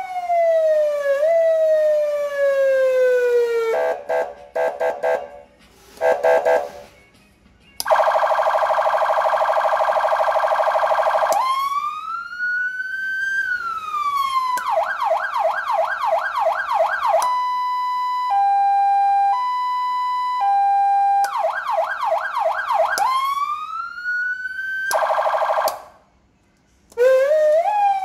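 Taiwanese-made PA-300 electronic siren amplifier stepping through its tones. It gives a slow wail that rises and falls, a rapid yelp, a fast warble, and a two-tone hi-lo that switches pitch about once a second. It cuts out for about a second near the end, then starts a new rising sweep.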